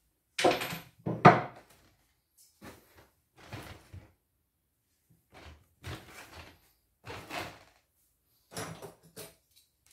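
Hand tools being rummaged on a wooden shelf: a series of irregular wooden clunks and metal clatters, separated by short quiet gaps, the loudest about a second in.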